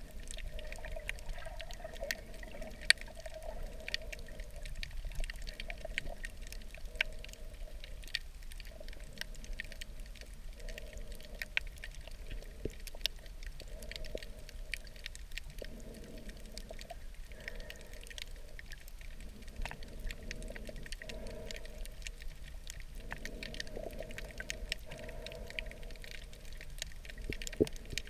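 Underwater reef ambience: a constant crackle of scattered sharp clicks, with a muffled rushing of water that swells and fades every second or two.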